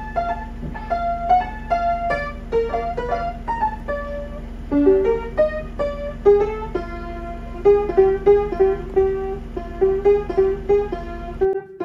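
Piano practice on an upright piano: a simple melody of single notes, with one note struck repeatedly in the second half. A steady low hum runs underneath and stops just before the end.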